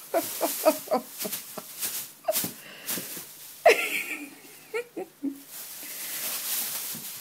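A thin plastic bag crinkling and rustling in quick sharp crackles as a Maine Coon cat inside it wriggles and a foot pushes at it. A person laughs softly in a few short bursts near the start.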